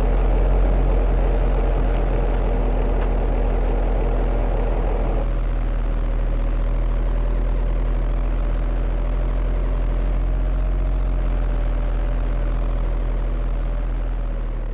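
Small electric motors and gearboxes of radio-controlled construction models running, a steady hum. The sound changes abruptly about five seconds in.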